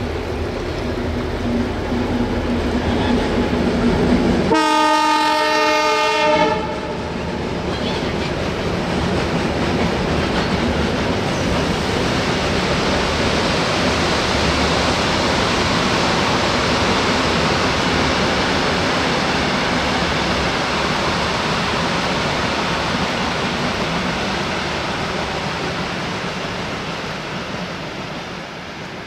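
EMD-built diesel locomotive running, then its horn sounding once for about two seconds. After that comes the long steady rumble and wheel noise of a heavy freight train's wagons rolling past, fading near the end.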